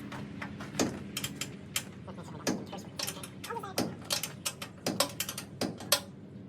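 Irregular metallic clicks and knocks, several a second, from hand tools being worked on a combine while its straw chopper is taken off.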